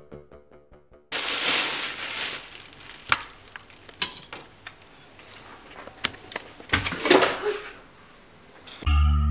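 Kitchen food-preparation sounds on a stone countertop: scattered knocks, clicks and clatter of handling, with bursts of rushing noise about a second in and again near the end. Music fades out at the start, and a low musical drone comes in at the very end.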